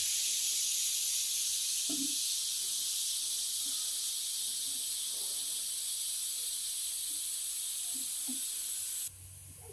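Steady hiss of rainfall, cutting off suddenly near the end, with a few faint knocks underneath.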